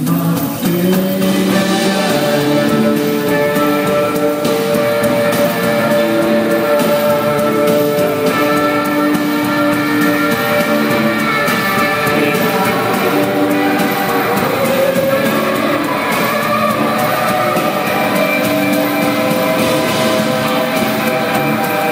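Live rock band playing an instrumental passage, led by amplified electric guitar with bass underneath, at a steady, loud level.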